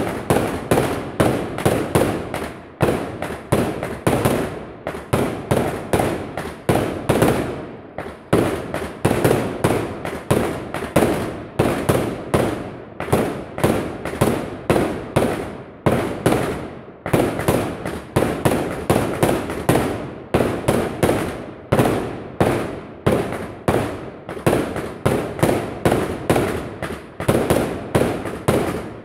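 Fireworks going off in a long, dense string of loud bangs, about three to four a second, with a few brief lulls.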